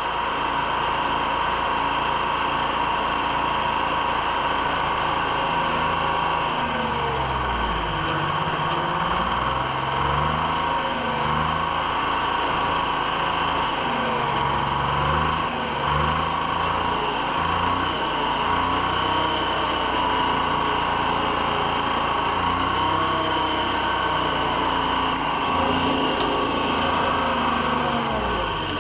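Treefarmer cable skidder's diesel engine running under load while dragging a hitch of logs, its pitch rising and falling again and again as the throttle changes.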